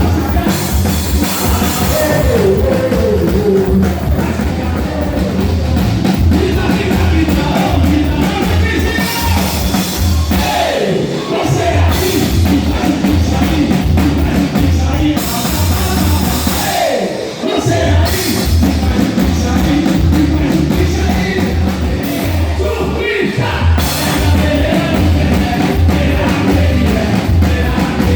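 Loud live band music with a steady, pounding beat in the drums and bass, and singing over it.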